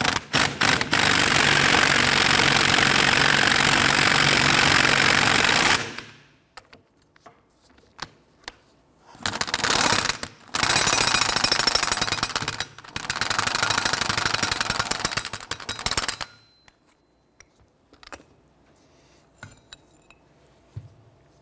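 Pneumatic impact wrench hammering on the screw of a C-frame ball joint press, forcing the old upper ball joint out of the steering knuckle. It runs in one long burst of about six seconds, then in three shorter bursts after a pause, and only faint clicks follow.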